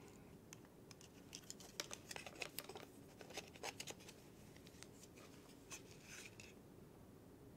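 Faint small clicks and scratches of small hardware being handled and pushed against a small 3D-printed plastic part by hand, several ticks a second for the first few seconds, then a couple more near the end.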